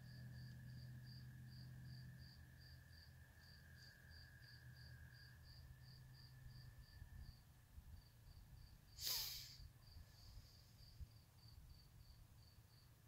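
Faint night calls of spring peeper frogs: a high peep repeating evenly, about three times a second, over a fainter steady trill that fades partway through. About nine seconds in, a brief falling swish is the loudest sound.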